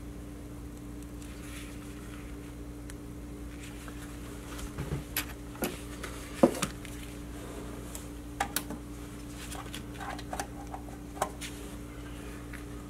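Light clicks and taps from hand work on a small basswood carving being detailed with a woodburning pen. They are scattered and come in small clusters from about the middle on, over a steady low hum.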